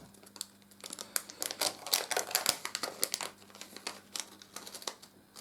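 Small plastic parts and packaging being handled by hand: a run of irregular light clicks and crinkles, busiest in the middle, over a faint steady hum.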